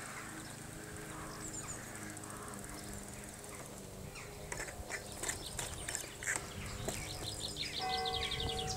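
Outdoor sound of a BMX bike being ridden, with scattered clicks and rattles, and birds chirping. Music comes in near the end.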